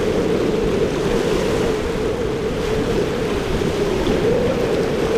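Twin Yamaha 300 outboard engines on a Scarab powerboat running at speed, a steady drone that wavers slightly in pitch, mixed with the rush of waves, spray and wind on the microphone.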